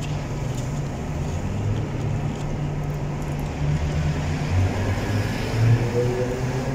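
Low, steady engine hum of a motor vehicle, swelling a little about five to six seconds in.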